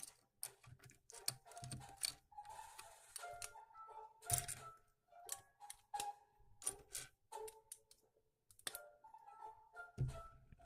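Background music with a light melody, over irregular sharp clicks and rattles of small plastic building bricks being handled and snapped together.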